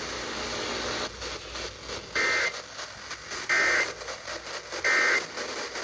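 Three short two-tone digital data bursts of an EAS/SAME end-of-message signal on NOAA Weather Radio, about a second and a half apart, marking the end of the warning broadcast. Radio static hisses under them.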